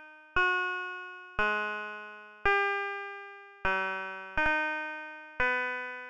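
Computer-synthesised tones from clicking points on a 'feather fractal', each point's orbit played back as a note. About six notes sound a second or so apart, two of them in quick succession near the middle. Each note is a chord of several pure tones that starts sharply and fades away, like an odd piano.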